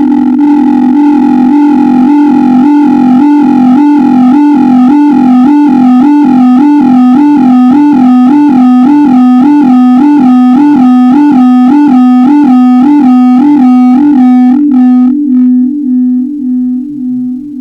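Malfunctioning microphone putting out a loud eerie electronic drone: a steady low tone under higher tones that warble up and down a few times a second. It breaks up and fades near the end.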